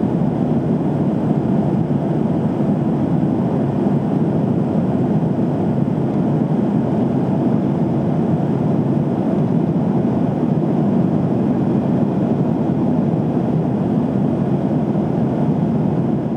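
Steady, even cabin noise of a Boeing 737-800 jet airliner in flight, the engines and the rush of air heard from inside the cabin.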